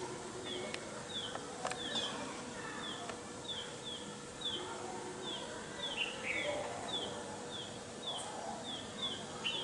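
A bird calling again and again in short, high, falling notes, roughly two a second, over steady outdoor background noise with a faint steady hum.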